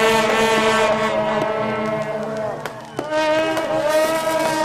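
A troupe of shaojiao, the long straight temple-procession horns with flower-shaped bells, blowing long held notes at several pitches at once. The notes bend and die away about three seconds in, and a new set of held notes starts straight after.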